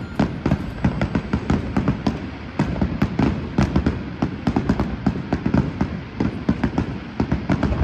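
Aerial fireworks display: a dense barrage of shells bursting in quick succession, several sharp bangs and crackles a second over a low rumble.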